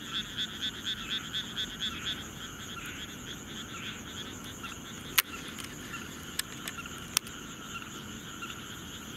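Frogs calling: a rapid pulsed croaking of about five pulses a second for the first couple of seconds, fading into a steady chorus. Two sharp clicks come about five and seven seconds in.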